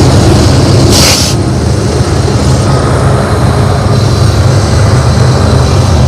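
BNSF diesel-electric freight locomotives passing at close range, their engines running with a loud, steady, deep drone, with a short hiss about a second in.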